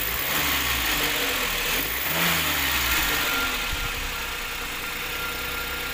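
Maruti Alto 800's three-cylinder petrol engine idling evenly with no misfire, the miss cured by new valves in the rebuilt cylinder head.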